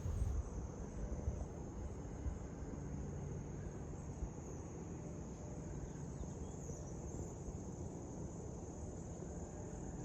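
Faint, steady high-pitched trilling of insects such as crickets in the summer garden, over a low rumble.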